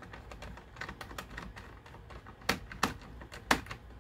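A small screwdriver turning a hinge screw into the plastic hinge of a drone's fold-down GPS mast. It makes a run of light ticks and scrapes, with three sharper clicks in the last second and a half.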